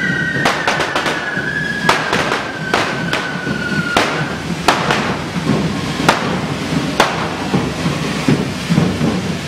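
Correfoc fireworks: spark-spraying fountain fireworks on devils' pitchforks rushing steadily, with sharp firecracker bangs every second or so. A high whistle slides slowly down in pitch and fades out about halfway through.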